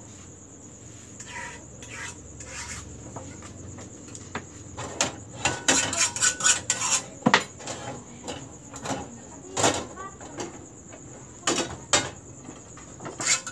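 Small metal frying pans clinking and scraping against a gas stove and each other as they are lifted, tilted and set back down while thin pancake skins are made: a run of irregular sharp clinks, busiest in the middle.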